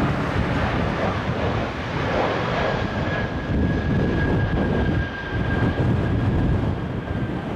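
Airbus A320 jet engines on final approach: a steady rumbling jet noise with a thin high whine held from about a third of the way in until the end. Gusty wind buffets the microphone underneath.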